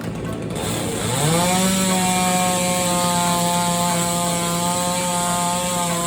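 Chainsaw revving up about a second in, then held at high speed and running steadily.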